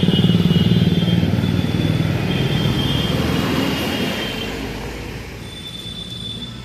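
A motor vehicle's engine running close by, loud at first and fading steadily as it moves away, over street traffic.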